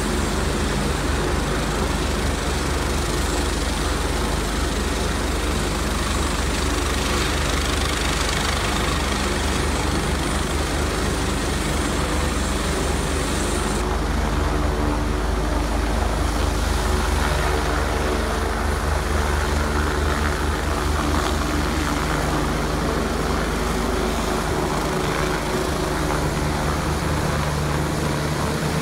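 Helicopter at close range, its turbine engines and rotor running steadily: a fast low rotor beat under a high whine.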